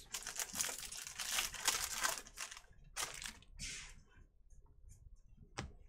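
Trading cards rustling and scraping against each other as a stack is flipped through by hand. The rustling is dense for about the first two seconds, comes again around three seconds in, and there is a single click near the end.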